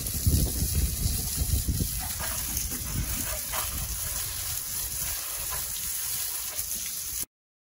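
Garden-hose spray gun jetting water onto a motorbike's front wheel and the wet driveway: a steady hiss of spray. It cuts off suddenly near the end.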